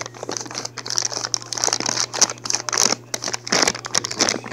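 Plastic packaging crinkling and rustling in a rapid, irregular stream of crackles as it is handled and hacked at with scissors, the material hard to cut. A low steady hum runs underneath.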